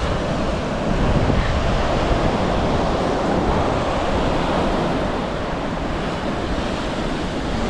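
Ocean surf breaking and washing up a beach, with wind buffeting the microphone. The waves are fairly rough.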